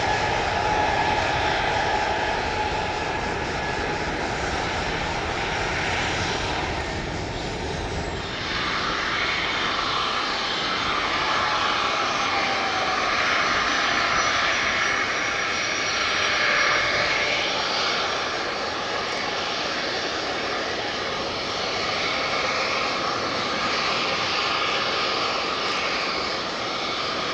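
Twin Pratt & Whitney PW2040 turbofans of a Boeing C-32A (a military Boeing 757-200) at takeoff power as the jet climbs away, a steady engine rumble with a high whine through it. About eight seconds in, the deep rumble drops away and a thinner, hissier jet noise carries on as the aircraft recedes.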